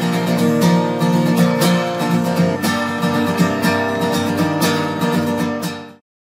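Background music led by strummed acoustic guitar with a steady beat, cutting off suddenly near the end.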